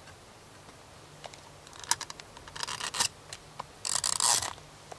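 Short bursts of scraping and rustling from camp cooking gear being handled, with a few sharp clicks; the loudest burst comes about four seconds in.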